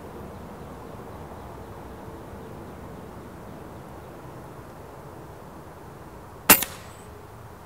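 A single shot from an FX Dreamline PCP air rifle about six and a half seconds in: one sharp crack with a smaller second peak right after it and a brief tail.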